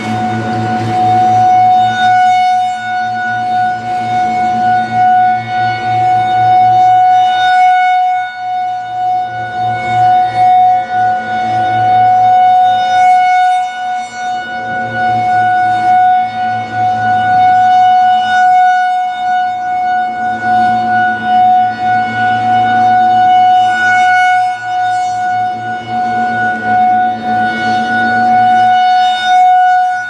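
Federal Signal 2001-SRN electromechanical warning siren sounding a steady tone. Its horn rotates at 8 RPM, so the sound swells and fades every few seconds as the horn sweeps past.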